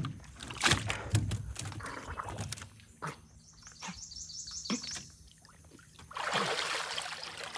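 Swamp water splashing and sloshing around a man wading chest-deep and grappling by hand for a catfish in a submerged pipe, with scattered sharp splashes and knocks at first and a longer stretch of heavier splashing near the end.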